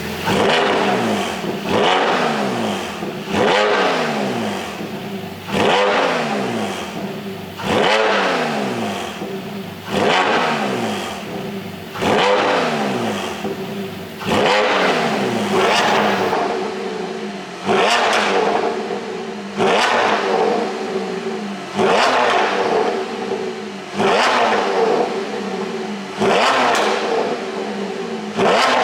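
Porsche 718 Boxster GTS 4.0's flat-six engine, running an ECU pop-and-crackle exhaust tune, blipped over and over, about once every two seconds. Each time the revs jump sharply and then fall back.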